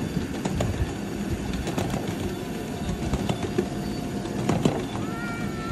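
Ride-on miniature train running along its track: a steady rumble of small wheels on the rails with frequent clicking and clattering from the rail joints and open carriages. A short high-pitched call sounds near the end.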